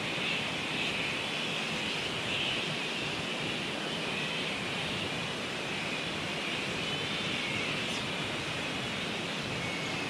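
Steady rush of a waterfall heard from above, with a continuous high, wavering chatter over it from the flying foxes roosting in the trees.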